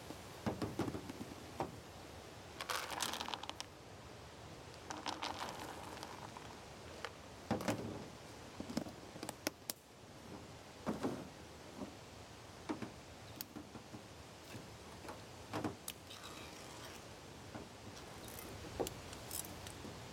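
Intermittent handling noises: short rustling and crinkling bursts with scattered light clicks and scrapes.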